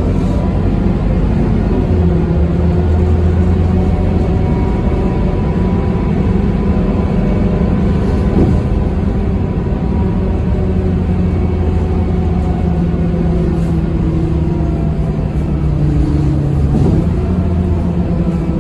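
Scania K230UB bus's 9-litre five-cylinder Scania DC9 diesel engine droning steadily under way, heard from inside the passenger cabin together with road noise. The engine note shifts slightly near the end.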